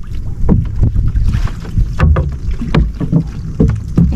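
Wind rumbling on the microphone and water moving around a small wooden outrigger boat. Over it comes a string of short knocks and splashes as the gillnet is hauled over the side.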